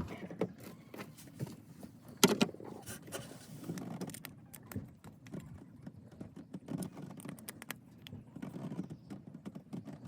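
Hand-tool work on the catch-can mount: scattered small metallic clicks and rattles of a screwdriver and parts being handled, with one sharper click about two seconds in.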